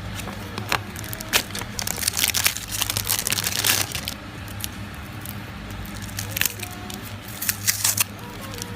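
Packaging being unwrapped by hand: irregular crinkling and tearing crackles, busiest a couple of seconds in and again near the end.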